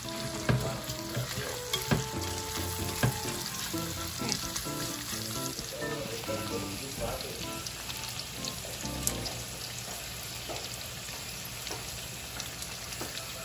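Bacon with chopped onion and garlic sizzling in a stainless steel pan while a slotted spatula stirs it, with a few sharp knocks of the spatula against the pan in the first three seconds.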